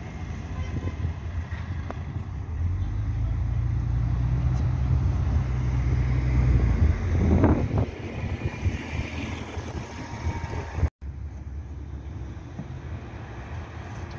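Articulated city bus driving past close by: a low rumble that builds as it approaches, is loudest as it passes about seven to eight seconds in, then fades. The sound cuts off abruptly about eleven seconds in and resumes as quieter, steady traffic noise.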